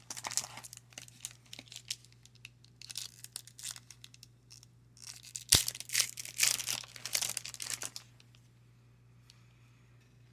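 A trading-card pack wrapper is torn open and crinkled in handling. The crackling comes in bursts over the first eight seconds, with one sharp snap about five and a half seconds in.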